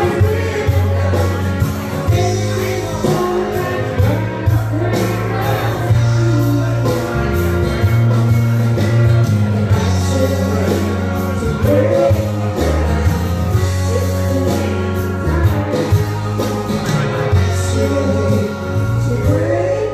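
Karaoke: a singer's voice through the PA over a loud rock-style backing track, with a steady beat and a bass line.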